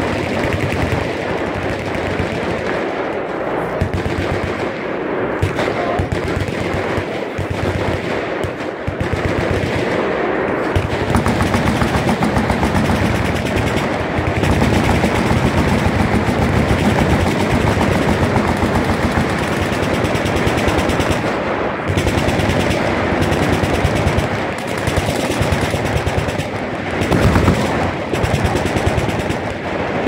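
Many machine guns firing together in sustained automatic fire: a dense, unbroken stream of overlapping shots.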